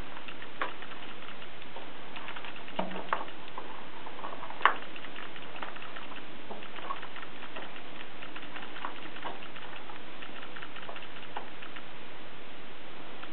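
Scattered, irregular ticks and small clicks over a steady hiss, with one sharper click about four and a half seconds in.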